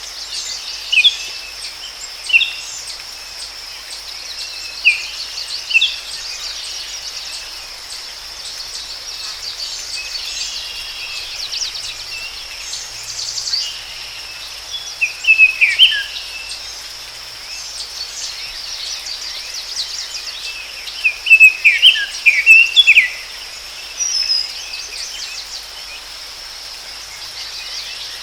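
Forest ambience: a steady high insect trill runs throughout, with birds calling in short chirps and quick falling notes, the loudest cluster of chirps coming about three quarters of the way through.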